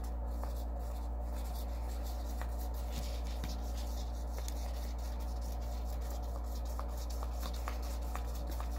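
Cotton swab (Q-tip) stroking and rubbing brown paint onto a paper plate: faint, scratchy strokes with light ticks, over a steady low hum.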